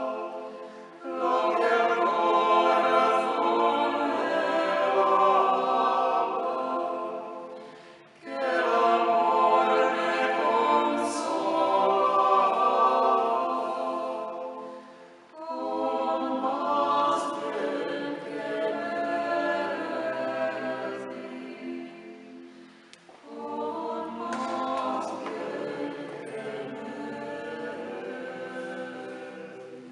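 Unaccompanied early music sung by several voices in parts. It comes in four phrases with short breaks between them, and the last phrase is softer.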